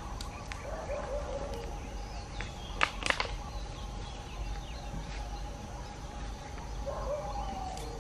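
Outdoor ambience with a steady hum, short wavering animal calls about half a second in and again near the end, and two sharp clicks about three seconds in.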